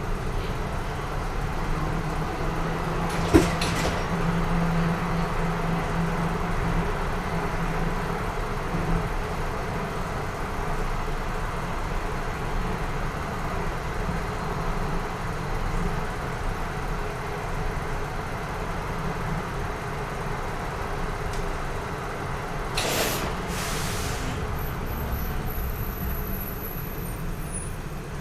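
Bus and railway station ambience: a steady rumble of vehicles with an engine humming for the first several seconds. A sharp click comes about three seconds in, and two short hisses come near the end.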